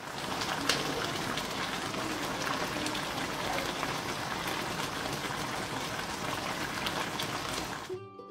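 Sauce bubbling and sizzling hard around a whole chicken and pineapple rings in a frying pan: a steady, dense crackle that cuts off just before the end.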